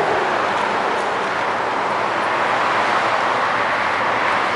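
Steady roar of road traffic going by, an even rushing noise with no breaks.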